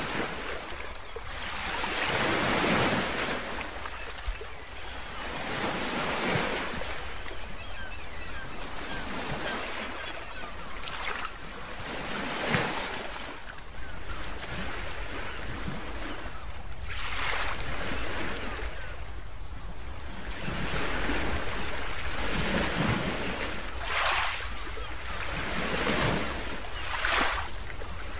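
Sea waves washing in, the rush swelling and fading every few seconds, over a steady low wind rumble on the microphone.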